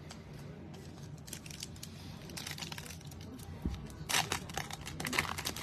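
Foil wrapper of a football trading card pack being torn open by hand: light crinkling and tearing that grows louder in the last second or two.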